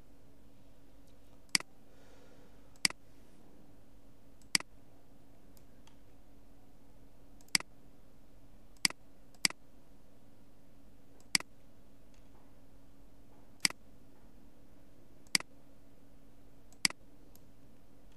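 Computer mouse clicking, about ten sharp single clicks at uneven intervals, over a faint steady hum.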